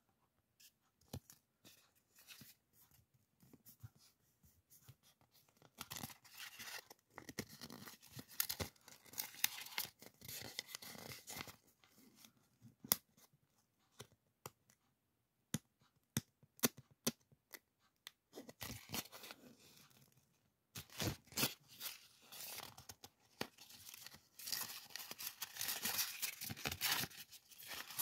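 A roll of printed decorative masking tape unwound and handled by hand: sticky peeling and rustling in several stretches, heaviest near the end, with scattered light clicks in between.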